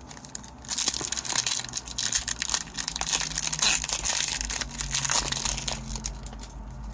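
Foil wrapper of a hockey card pack crinkling and crackling as it is opened and crumpled in the hands, a dense run of crackles lasting several seconds.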